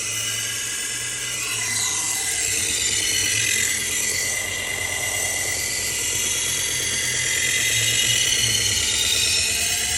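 Powered belt sharpener running a 120-grit 3M Cubitron abrasive belt against the steel blade of a butcher knife, grinding a 20-degree edge bevel. It is a steady grinding hiss with a slowly wavering motor whine.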